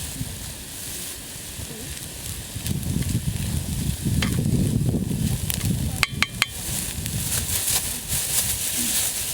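Food sizzling in a cast iron skillet over a campfire, with stirring in the pan, louder in the middle, and a few sharp clinks about six seconds in.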